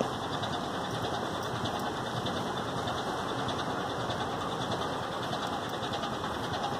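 Steady outdoor background noise: an even hiss and rumble with no single sound standing out.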